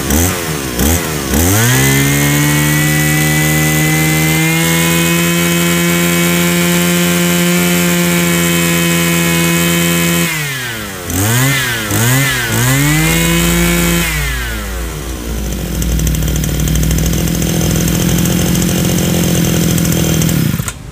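BMC 430 brush cutter's air-cooled two-stroke engine being run hard while its rich factory-set high-speed mixture is tuned. It blips, climbs to a high held speed whose pitch rises slightly about four seconds in, gives a run of quick throttle blips near the middle, then settles to a lower steady speed for the last few seconds.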